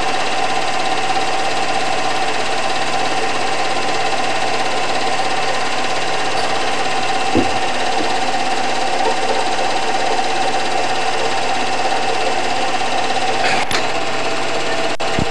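Movie projector running: a steady mechanical clatter with a constant whine. A few sharp clicks come through, one about halfway and two near the end.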